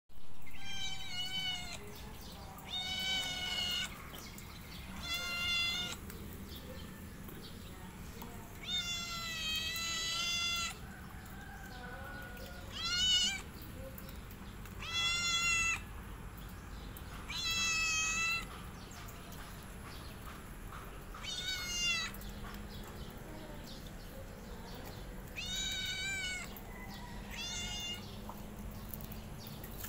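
A calico cat meowing repeatedly: about ten drawn-out meows a few seconds apart, the longest one near the middle.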